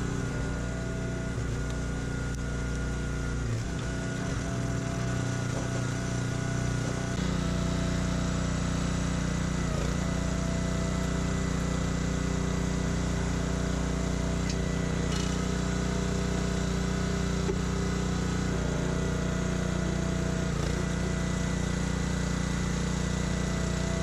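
Small gasoline engine of a hydraulic log splitter running steadily while rounds are split, growing louder about seven seconds in, with a couple of faint knocks from the wood.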